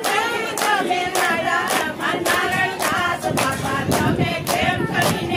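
A group of women singing a bhajan together in unison, clapping their hands in a steady beat about twice a second.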